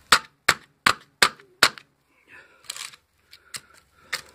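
Hammer blows on a piece of microwave-transformer steel used as a wedge on the transformer's steel core, driving it in to split the core open: five quick strikes about three a second, a pause, then two more.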